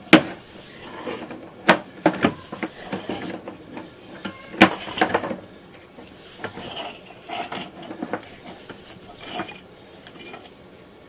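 Irregular knocks and clatter of hard objects being handled, sharpest in the first five seconds, then softer rubbing and tapping.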